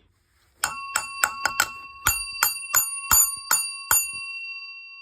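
Edwards fire alarm bell's metal gong struck by hand, about a dozen sharp strikes in two quick runs. It rings with a steady, bright, multi-toned ring that fades slowly after the last strike.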